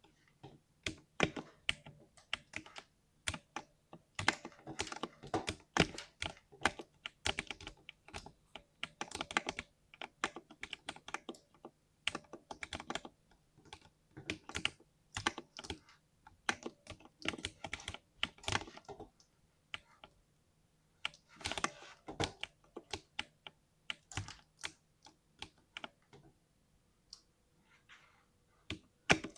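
Typing on a 60% mechanical keyboard: irregular runs of deep, thocky keystrokes that pause briefly twice in the second half.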